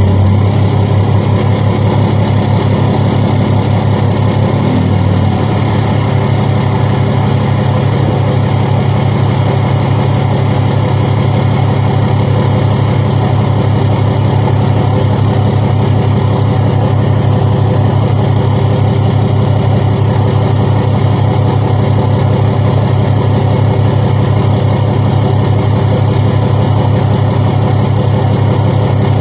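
Cummins diesel engine of a 2008 Ram pickup idling steadily.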